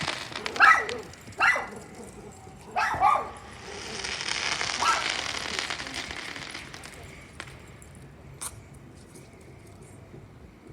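A dog barks four times in the first five seconds, then a hissing crackle swells and fades, with a couple of sharp pops later on.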